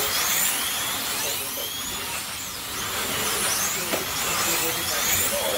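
Several slot cars running on a large banked track, their small electric motors whining, each whine sweeping up and down in pitch as the cars speed up and slow for the turns.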